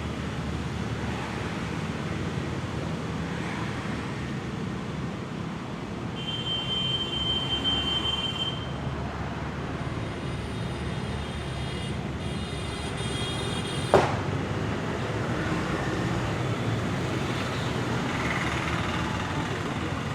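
Steady street traffic noise, with a high steady tone lasting about two seconds near the start, fainter high tones a little later, and one sharp smack about fourteen seconds in.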